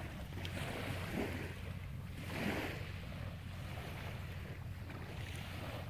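Small waves lapping on a sandy shore, washing in softly every second or two, over a steady low rumble of wind on the microphone.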